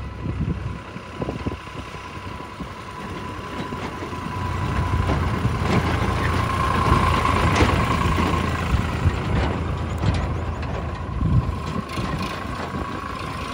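Sonalika DI-42 RX tractor's diesel engine running as the tractor drives up towing a trailer, growing louder as it comes close, about halfway through. A steady high whine runs under the engine and is strongest as it passes.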